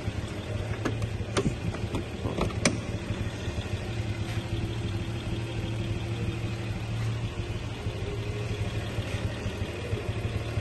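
1961 Rover 100's straight-six engine idling steadily; it has a slight exhaust blow at the manifold. A few sharp clicks in the first three seconds.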